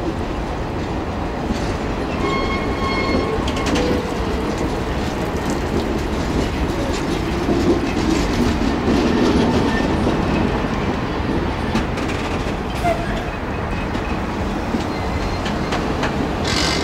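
Circus train's passenger-style cars rolling slowly past, wheels clicking over the rail joints over a steady rumble, with a brief high-pitched squeal about two seconds in.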